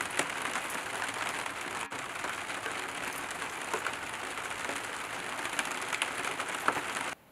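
Steady rain falling: a dense, even hiss made of countless small drop ticks, with a few sharper drips standing out. It cuts off suddenly just before the end.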